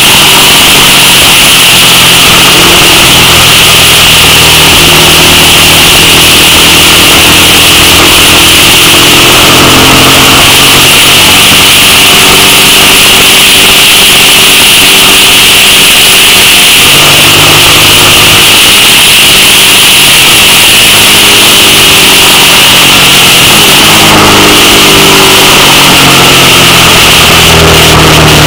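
Suzuki SV650's 645 cc V-twin engine running under way, its pitch shifting up and down several times with throttle and gear changes, under a loud, steady rush of wind and road noise.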